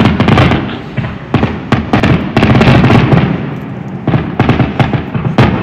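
Fireworks going off: a dense, continuous run of sharp bangs and crackles.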